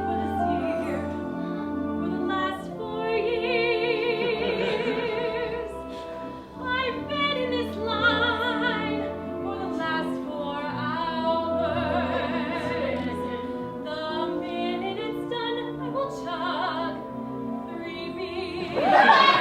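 Music: operatic-style singing with a wide vibrato on long held notes, over a sustained accompaniment.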